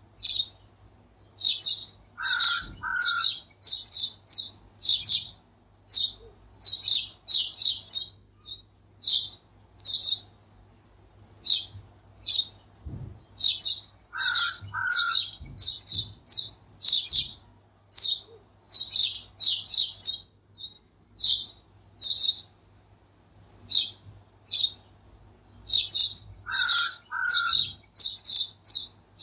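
Small birds chirping: many quick high chirps in a steady stream. A lower two-note call repeats three times, about twelve seconds apart.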